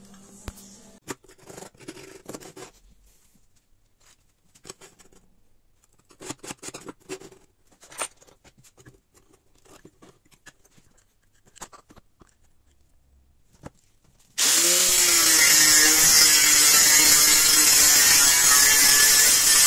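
Scattered faint clicks and knocks of metal parts and tools being handled on a workbench. About fourteen seconds in, an angle grinder starts abruptly and cuts into a metal plate, running loud and steady.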